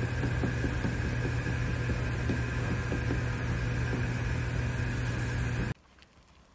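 Steady electric hum of a stable's wall fan, a deep drone with a fixed higher whine and faint irregular ticking over it, cutting off suddenly near the end.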